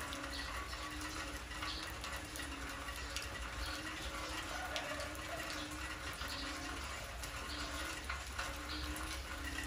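Rain falling steadily, with drops pattering and dripping onto wet concrete and puddles. Underneath, a faint low tone repeats about once a second.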